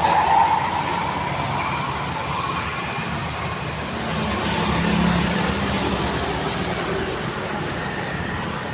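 Highway traffic with a motor vehicle passing, its engine noise swelling about five seconds in. A rising whine left over from before fades out over the first two seconds.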